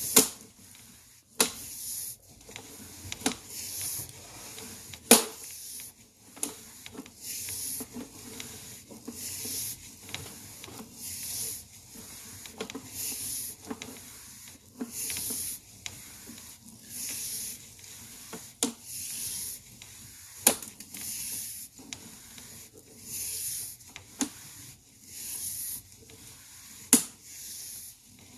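Sewer inspection camera's push cable being fed by hand through the drain line: rhythmic rubbing, hissing strokes about once a second, with a sharp click every couple of seconds.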